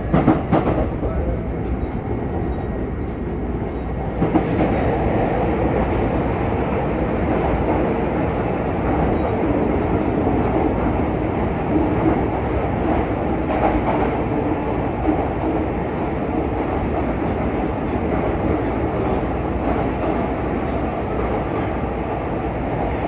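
Running noise heard inside the car of a Yokohama Municipal Subway 3000R train (Mitsubishi IGBT-VVVF drive) at speed: a steady rumble of wheels on rail with a few clicks near the start. The noise steps up about four seconds in as the train enters a tunnel and stays louder.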